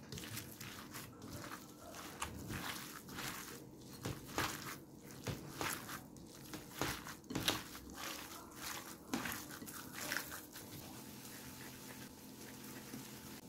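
Plastic-gloved hands kneading ground meat mixed with grated onion and spices in a glass bowl: soft, irregular squishing strokes that thin out after about ten seconds.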